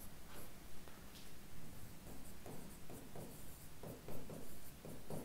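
Marker pen writing on a whiteboard: faint, irregular strokes and scratches as the letters are drawn.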